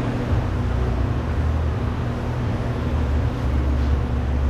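Steady low mechanical rumble with a constant hum, like a running motor, unchanging throughout.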